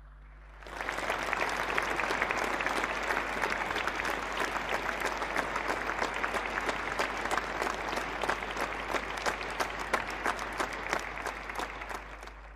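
Audience applauding: many hands clapping together. It starts suddenly under a second in, holds steady and fades out near the end.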